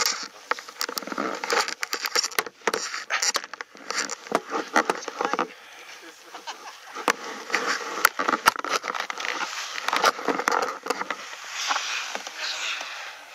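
People talking in muffled, indistinct voices, broken by frequent sharp clicks and crackles.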